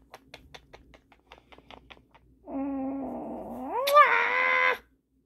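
A quick run of small kissing smacks, then one long drawn-out meow-like cry that holds low and rises in pitch, loudest just before it stops sharply.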